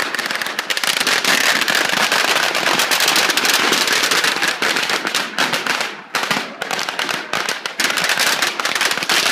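A long string of firecrackers going off in a loud, rapid, continuous crackle of bangs, with brief lulls about six and about seven and a half seconds in.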